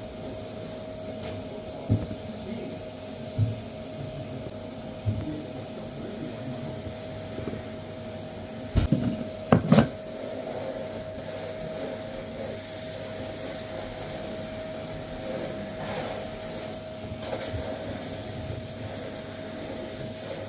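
A steady mechanical hum with a few sharp knocks and clicks scattered over it; the loudest come as a quick cluster about ten seconds in.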